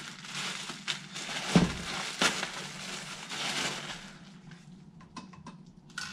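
Plastic packaging bag crinkling and rustling as it is pulled open and handled, with a single thump about one and a half seconds in. It dies down to a few faint clicks near the end.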